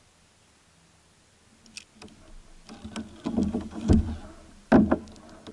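Knocks and thumps on a plastic fishing kayak's hull and fittings as the angler shifts and handles a hooked big blue catfish alongside. Starts with a few light clicks after a quiet second or so, then builds to a run of heavier knocks, the two loudest near the end.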